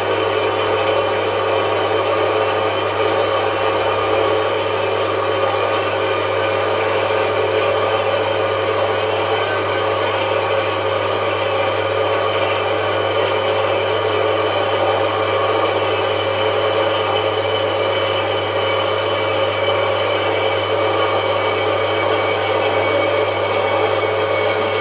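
Horizontal metal-cutting bandsaw running steadily, its blade cutting through a steel bar, over a constant motor hum.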